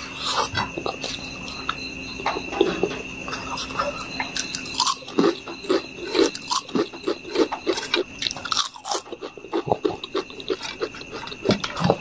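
Close-up chewing and crunching of potato chips eaten by hand, a dense run of irregular crisp crackles mixed with wet mouth sounds.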